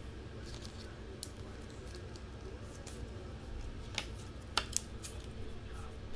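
Light clicks and soft rustling from trading cards and their packaging being handled, over a low steady hum. The sharpest clicks come about four seconds in.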